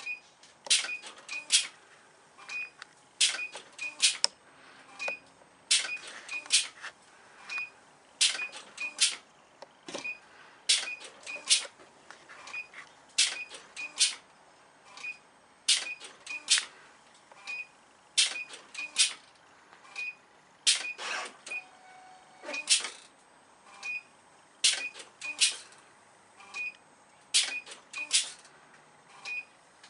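CNC selective-soldering machine working through the board joint by joint: groups of two or three sharp mechanical clicks repeating about every two and a half seconds, with a faint short chirp between groups.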